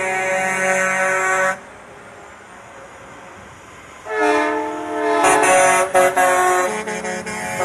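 Semi-truck air horns sounding loud chords of several notes at once. The first blast cuts off about a second and a half in. After a pause filled with low truck engine noise, another blast starts about four seconds in, stepping in pitch and broken by short gaps.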